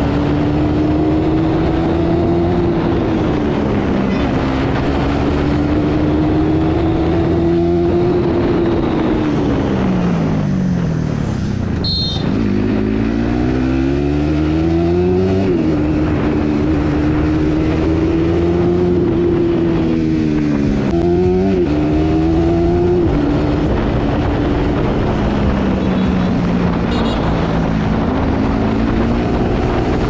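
Bajaj Pulsar NS200's single-cylinder engine through its stock exhaust, pulling at city cruising speed with the revs rising and falling on the throttle. About ten seconds in the revs drop away, then climb hard again. Around twenty seconds they dip and rise briefly.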